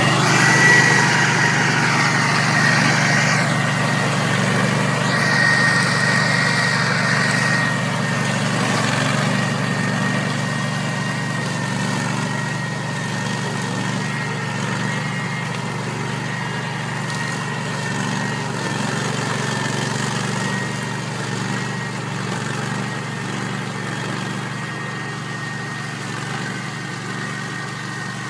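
Orec Rabbit RM980F 4WD ride-on brush mower running as it cuts through tall, dense grass and weeds, with a steady high whine over the engine. It grows gradually fainter as it drives away.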